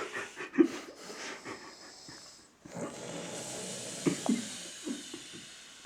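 A man snoring in his sleep: a long, hissing breath runs for about three seconds in the second half, with a few short low snorts in it, after some brief scattered noises at the start.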